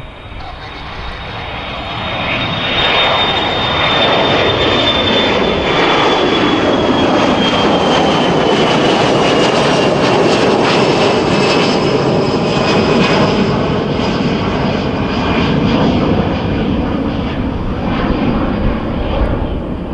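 Boeing 737 Classic's twin CFM56 turbofans at takeoff power as the jet climbs out past. The roar builds over the first few seconds and then holds loud, with a high whine that slowly falls in pitch as the aircraft goes by.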